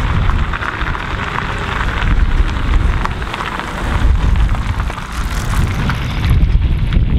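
Audi A6 estate towing an empty car trailer drives slowly past, its tyres and trailer rolling on the tarmac with small rattles. Heavy wind rumble on the microphone runs under it.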